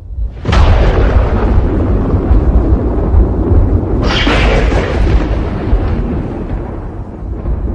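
Violent thunder: a sharp thunderclap about half a second in, rolling into a long low rumble, then a second clap about four seconds in whose rumble fades away near the end.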